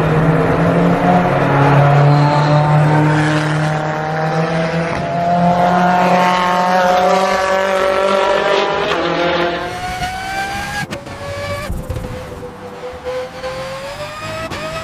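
Race car engine revving, its pitch climbing steadily for several seconds. The sound breaks off about eleven seconds in and a fresh climb begins.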